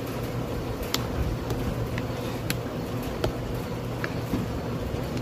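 Faint, scattered clicks and taps of a screwdriver and hands working a rubber tire onto a two-piece bolted wheel rim, over a steady low hum.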